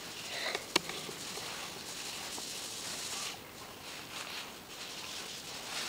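Faint rustling and hiss of a handheld camera being carried around, with one sharp click a little under a second in.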